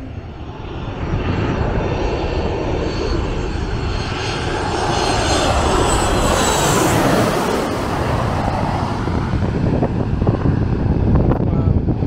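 Twin-engine jet airliner passing low overhead on approach: a jet roar that builds, is loudest about six to seven seconds in with a high engine whine, then eases to a lower rumble.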